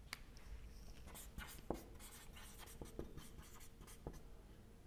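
Marker pen writing on a whiteboard: a series of faint, short strokes and taps as words are written.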